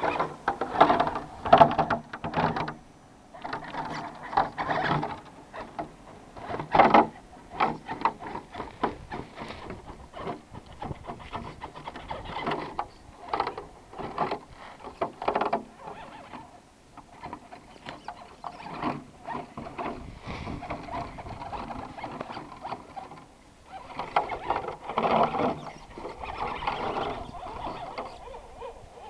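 Axial SCX10 RC rock crawler's electric motor and gearbox whining in short, irregular throttle bursts as it climbs rock, with clicks and scrapes of the tyres and chassis on the stone.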